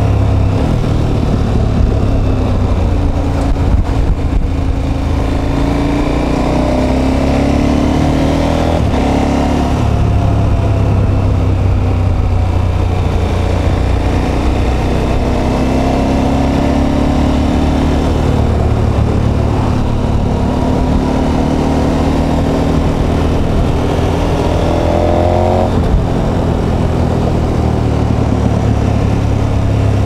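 KTM 1290 Super Adventure S's V-twin engine heard from the rider's seat under way, its pitch climbing several times as the throttle opens and dropping back between, with a few brief breaks when the throttle is rolled off.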